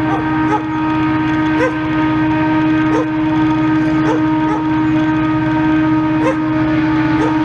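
M62M diesel locomotive's engine running under power as it pulls a freight train, a loud steady drone with a constant humming tone over it.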